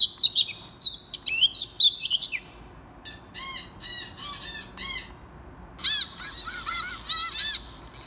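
Recorded bird calls played back through an electronic bird caller's built-in speaker: a rapid chirping song of quick up-and-down sweeps for about two seconds, then, after a short break, strings of repeated arched call notes.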